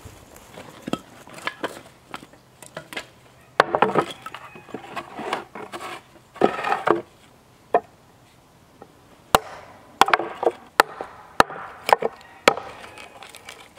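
Hatchet splitting kindling from a wooden board: pieces of wood knocked and shifted, then a run of about six sharp chops, a little over half a second apart, in the second half.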